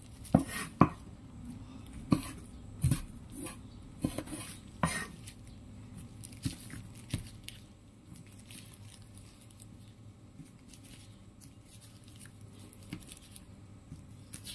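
Cleaver chopping pickled red bird's eye chillies on a wooden chopping board: about seven sharp knocks of the blade on the wood in the first five seconds, two fainter ones soon after, then only faint taps.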